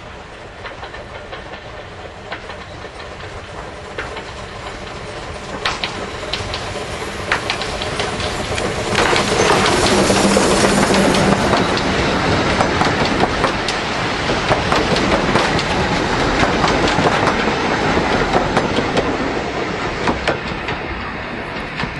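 A narrow-gauge steam train approaching and passing close by. It grows steadily louder, then the carriages' wheels click rapidly over the rail joints as they go by, and the sound eases off near the end.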